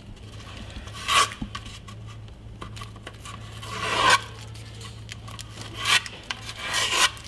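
Blue masking tape being peeled off a carbon-fibre paddle blade: several short rasping rips, the longest about four seconds in, over a low steady hum.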